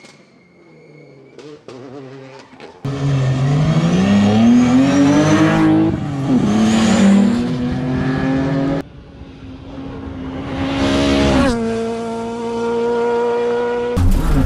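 Rally cars at full throttle on a tarmac stage. First comes a faint car approaching, then, after abrupt cuts, an engine revving hard up through the gears with a shift about six seconds in, and another car rising to a high steady note as it goes by.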